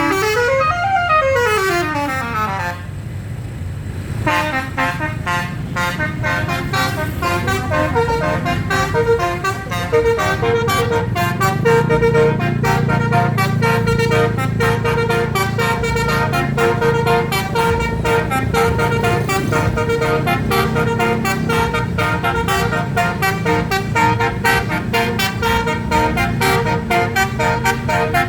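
Basuri telolet multi-tone bus horn playing. It starts with notes sliding up and down, then after a short break plays a long, fast run of short repeating notes over the low rumble of the bus engine.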